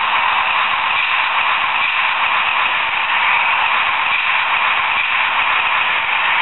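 Viessmann HO-scale Strukton tamping machine model's sound decoder playing its working-machine noise through the model's small loudspeaker: a steady, thin, hissy drone with almost no bass.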